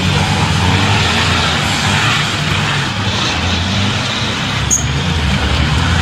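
Engines of several off-road 4x4s running under load on a dirt hill climb, with a brief sharp click a little before the end.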